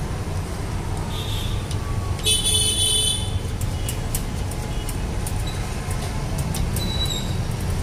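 Steady rumble of passing street traffic, with a vehicle horn sounding briefly about two seconds in.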